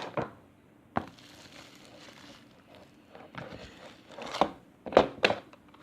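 Foam-bead slime being handled and squeezed, crackling, with a few sharp clicks, one about a second in and several near the end.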